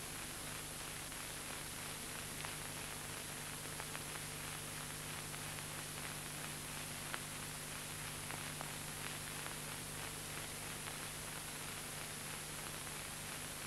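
Steady hiss with a low hum and occasional faint clicks: the background noise of an old film soundtrack.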